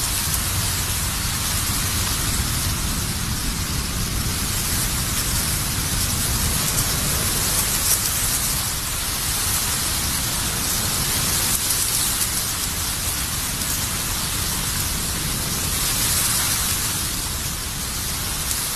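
Thousands of dried, black-dyed bamboo leaves hanging on threads, rustling steadily as a fan stirs them: a dense, even hiss like light rain over a low rumble.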